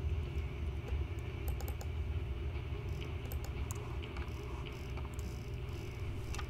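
A few scattered, irregular clicks at a computer, keys and mouse buttons, some in quick little runs, over a steady low hum.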